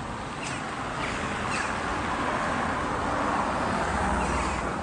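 A BMW saloon driving slowly past at close range: engine running and tyre noise over a steady wash of street traffic, with a low hum growing near the end.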